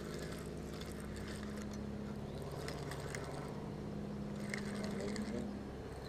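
A steady low mechanical hum, like an engine or motor running.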